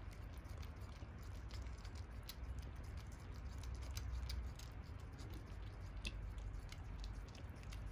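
Masked palm civet chewing ripe melon flesh, with irregular small wet clicks and smacks from its bites, over a low steady rumble.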